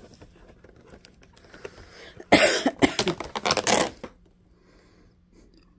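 A woman coughing a few times, about two seconds in, after quiet handling of the cardboard advent calendar; her voice is hoarse.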